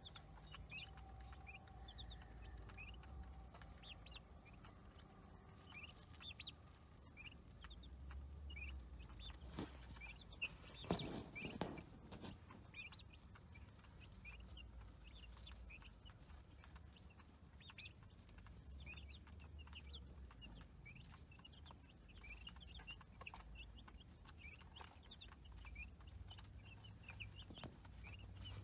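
Baby chicks peeping: a constant chorus of short, high cheeps, several a second. A brief louder rustling knock comes about eleven seconds in.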